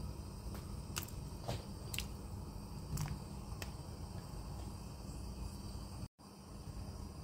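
Peeled potato chunks being put into a saucepan of water: about six soft plops and taps spread over the first few seconds, over a low steady hum. The sound cuts out for an instant near the end.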